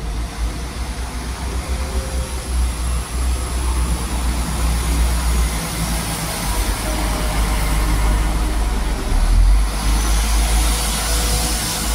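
Class 172 Turbostar diesel multiple unit pulling out and running past, its underfloor diesel engines working under power with a deep steady rumble that grows louder as the train gathers speed.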